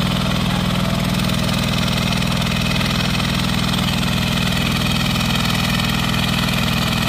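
Hand tractor engine running steadily and loudly as it drives a turtle tiller (pagong) through soft, muddy rice-paddy soil.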